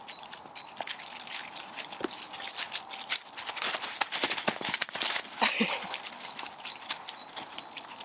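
Footsteps rustling through a thick layer of fallen leaves: a leashed Staffordshire bull terrier and its walker stepping along a leaf-covered forest floor, with the rustling busiest and loudest in the middle.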